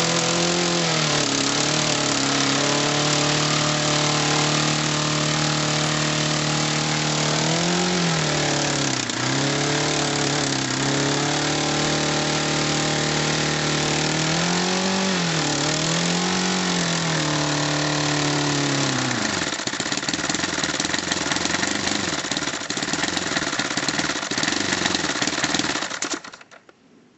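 Home-built 10cc single-cylinder four-stroke glow-plug model engine, fitted with an air-rifle silencer, running steadily. Its note dips and rises a few times as the revs change, breaks up into a rougher sound in the last several seconds, then cuts off suddenly near the end.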